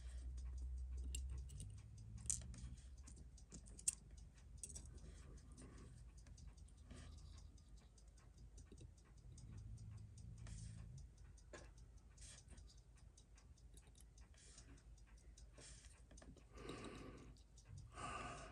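Faint small metallic clicks and taps of steel tweezers working on a Seiko 6309 automatic watch movement as it is taken apart in a movement holder, with two sharper clicks a couple of seconds in.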